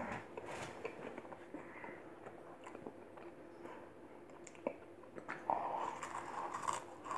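Dry saltine crackers being chewed with closed mouths: faint crunching and mouth noises, with a short muffled sound from behind a hand over the mouth near the end.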